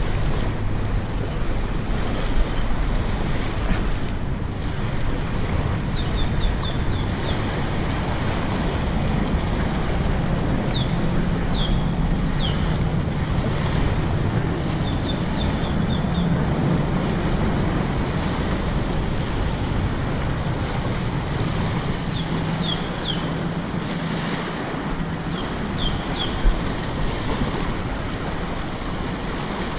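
Small waves washing on a sandy beach with wind buffeting the microphone: a steady rushing hiss. A low hum sits under it through the middle, and a few short high chirps come now and then.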